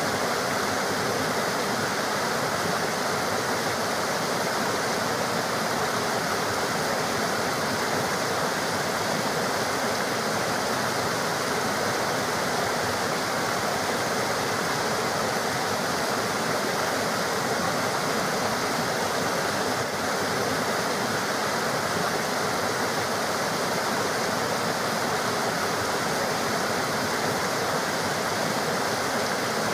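River water running: a steady, unbroken rush of flowing water.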